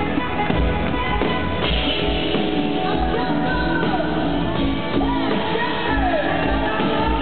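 Live country-rock band playing in an arena: drums keep a steady beat under electric guitars and bass, with singing over the top.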